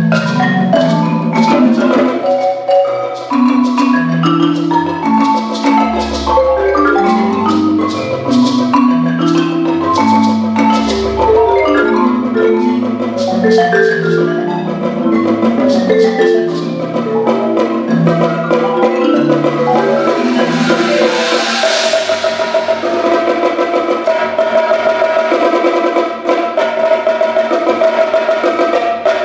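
Concert marimba playing slow rolled chords, with many sustained notes reaching down into the deep bass register. About two-thirds of the way through a brief cymbal-like swell rises. After it, fast steady percussion strokes take over.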